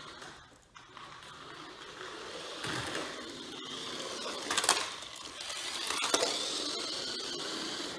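Papier-mâché-bodied RC toy car running: its small electric motor whirs, with a whine that rises and then sags in pitch near the end. Two sharp knocks about four and a half and six seconds in.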